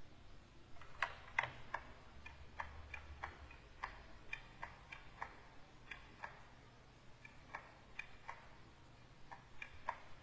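Faint, irregular light clicks, about two a second and some in quick pairs, from a pen stylus tapping and dabbing on a graphics tablet while painting.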